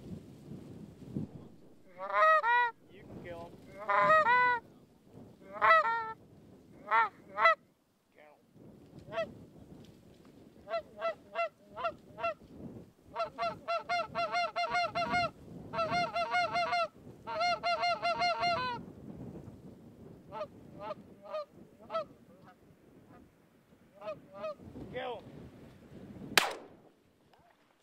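Canada geese honking and clucking: scattered honks at first, then a fast, dense run of calls in the middle, thinning out again. A single sharp bang comes near the end.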